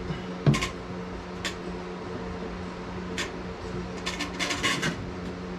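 A few light clicks and knocks of objects being handled, with a quick cluster of them near the end, over a steady low hum.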